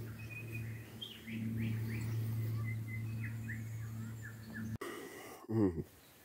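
Bush birds chirping, many short falling calls in quick succession, over a steady low hum that stops about three quarters of the way in. Near the end comes one brief, loud sound close to the microphone.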